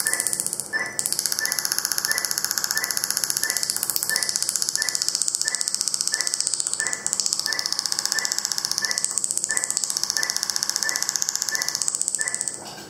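Fotona Er:YAG laser firing rapid pulses through a PIPS fiber tip into water, a fast, even stream of sharp ticks with a short high beep repeating about two and a half times a second. It stops abruptly near the end.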